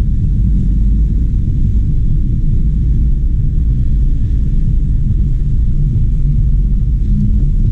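Steady low rumble of a Fiat car heard from inside its cabin as it drives slowly in stop-and-go traffic.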